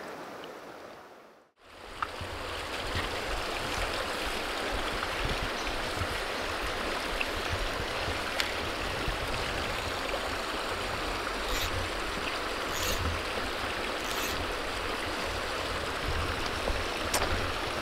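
Shallow backcountry river running over stones: a steady rush of flowing water. It fades out briefly about a second and a half in, then carries on evenly.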